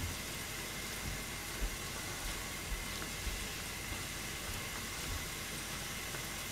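Steady hiss of a pan of soup simmering on a gas stove, with a few faint soft thumps as pork slices are dropped in.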